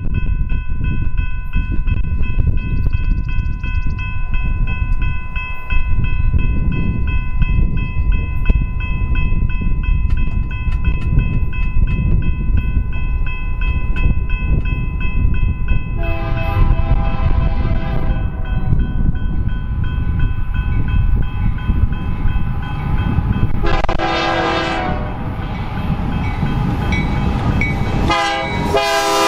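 Freight train diesel locomotive horns over the low rumble of the locomotives. One long, steady horn note is held for about sixteen seconds. Then a lower horn chord sounds in three blasts, the last and loudest as the BNSF lead locomotive comes close.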